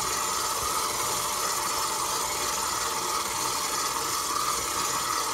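KitchenAid stand mixer running steadily on low speed (setting 2), its motor giving a constant whine as the dough hook works newly added flour into bread dough in the steel bowl.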